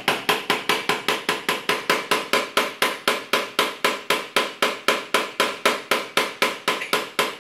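Rubber hammer tapping rapidly and evenly on a motorcycle's front sprocket, about five blows a second, to drive the sprocket off the output shaft splines where it may have seized.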